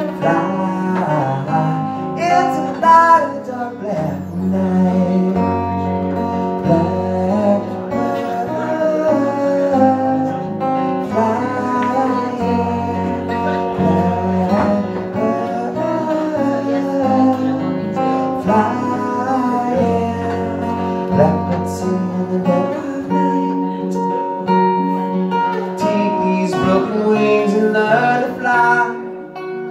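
Acoustic guitar strummed in a steady rhythm, with a man singing along into a microphone.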